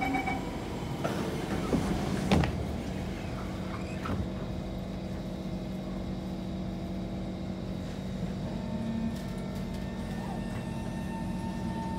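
Door-closing warning chime of a Kawasaki C151 metro train ending, then the doors sliding shut with a thud about two seconds in. The stationary car hums steadily, and near the end a steady whine sets in as the traction equipment starts to take the train away.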